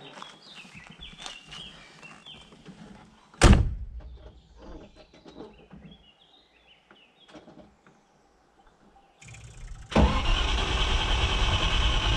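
Birds chirp faintly and a single loud thump comes about three and a half seconds in. Near the end the Range Rover Classic's V8 is cranked and catches about ten seconds in, then runs loud and steady at the exhaust tailpipes.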